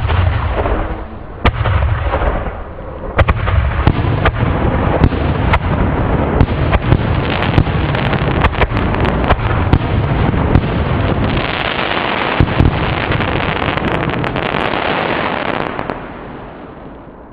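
Legend Fireworks Taste My Venom canister shell fired from its mortar tube with a sharp thump, then bursting overhead into a long, dense crackle of sharp pops that fades out near the end.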